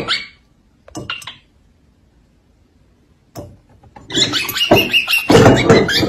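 A drinking glass clattering and rattling against a wooden tabletop as a cockatiel pushes it over: a short clatter about a second in, then a longer, loud one from about four seconds in.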